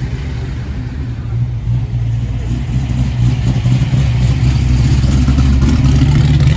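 Steady low rumble of a motor vehicle, growing gradually louder over the few seconds.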